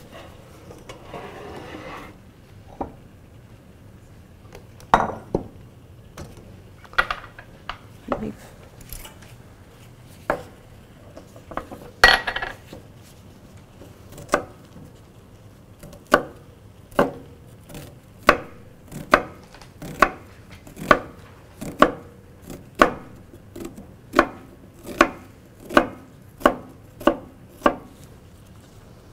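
Chef's knife dicing red onion on a wooden cutting board: a few scattered knocks at first, then, from a little past halfway, a steady run of chops, about one and a half a second.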